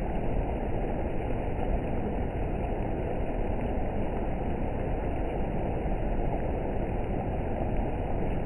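Rain falling steadily, an even, unbroken rushing noise with no distinct strikes.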